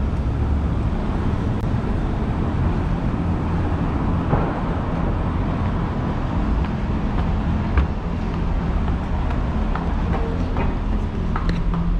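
Steady city street traffic noise. In the second half, single sharp footsteps begin, becoming more frequent near the end as they go down the subway entrance stairs.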